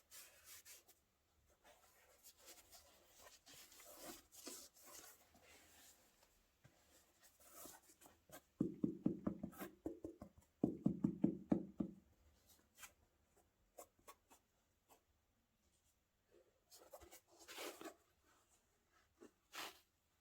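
Hands handling a new pair of sneakers and their packaging, rustling and rubbing with scattered light clicks. There are two louder runs of quick rubbing strokes a little before and just after the middle.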